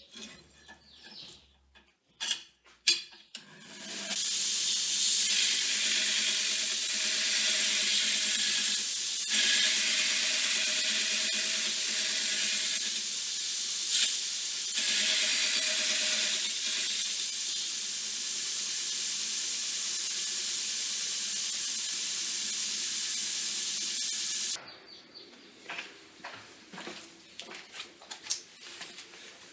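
Powered sandpaper grinding a rounded corner onto a metal part pressed against it in a radius grinding jig: a loud, steady hiss of abrasive on metal that starts about four seconds in and cuts off suddenly near the end. A few light clicks and knocks of handling come before and after it.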